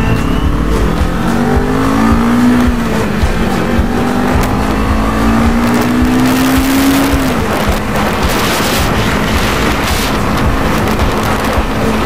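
CFMoto 400NK parallel-twin motorcycle engine running under way, its pitch climbing steadily as the bike accelerates and then dropping about seven seconds in, with heavy wind noise on the microphone.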